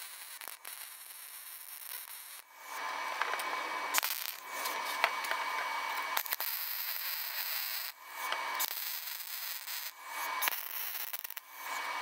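Wire-feed (MIG) welding arc crackling and hissing while a thin steel patch plate is welded on. It is fainter for the first couple of seconds, then comes in a series of weld runs: the first about five seconds long, then several shorter ones, each broken off by a brief pause.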